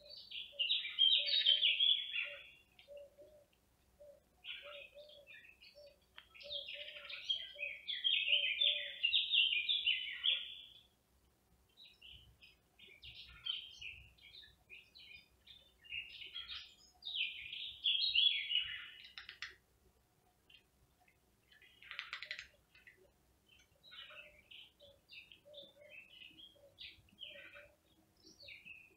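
A songbird singing in phrases of rapid, high chirps, loudest in three long bursts in the first twenty seconds and then in shorter, fainter phrases. Under the song, a faint low note repeats about twice a second through the first ten seconds.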